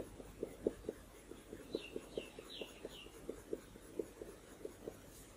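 Coloured pencil making short, quick strokes on paper, a soft tick with each stroke, about four a second. A bird gives four short falling chirps about two seconds in.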